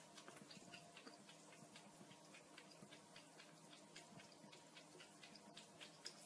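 Cat lapping water from a thin stream running from a bathroom tap: faint, quick wet clicks, several a second.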